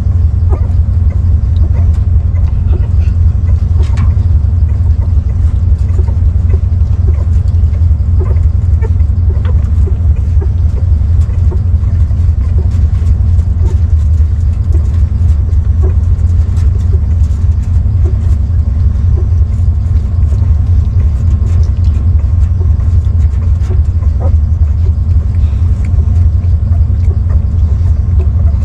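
A loud, steady low rumble that does not change throughout, with faint small ticks above it.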